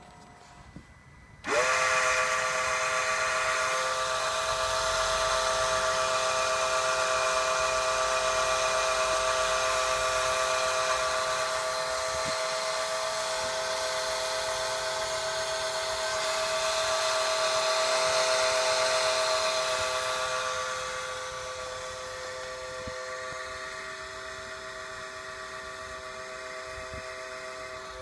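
Strange steady whine from an Audi A8, a small motor-like drone with several fixed tones over a hiss. It starts abruptly about a second and a half in with a brief rise in pitch, and gets quieter after about twenty seconds.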